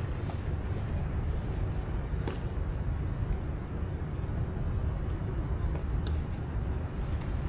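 Steady low outdoor rumble of background noise, with two faint brief ticks about two seconds in and near the end.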